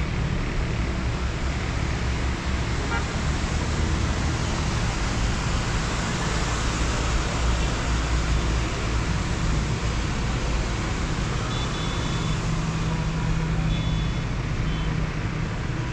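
Steady road traffic noise of cars driving on a multi-lane city road, a continuous wash with a low rumble.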